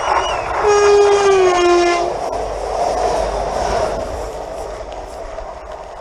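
Renfe Class 447 electric commuter train sounding one loud horn blast, held for about a second and a half with its pitch dropping slightly. The rush and rumble of the train going by follows and fades toward the end.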